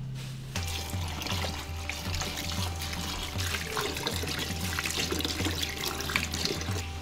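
Tap water running into a metal bowl of strawberries in a kitchen sink, starting about half a second in, with a hand stirring the berries in the water. Background music plays underneath.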